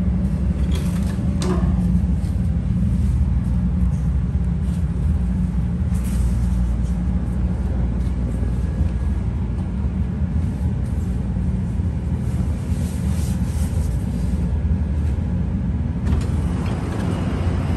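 Steady low rumble and hum inside a Bombardier 5000-series rapid-transit car as it draws along the platform and stands at the terminal station, with a few short clicks and knocks about a second in and again around six seconds.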